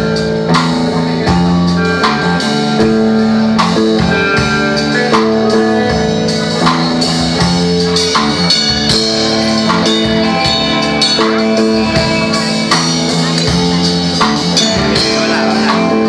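Live rock band playing: electric guitars holding sustained chords over a drum kit keeping a steady beat.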